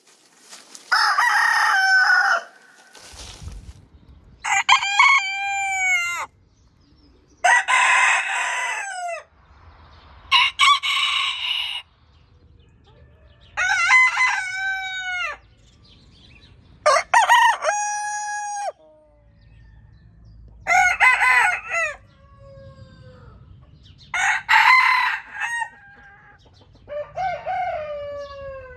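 Roosters of various chicken breeds crowing one after another: about nine separate crows, each a second or two long, with short quieter gaps between them.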